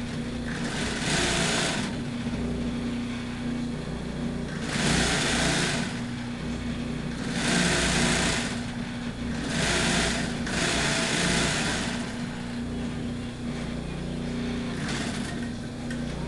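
Overlock sewing machine stitching in several short runs of a second or so each, its motor humming steadily in between.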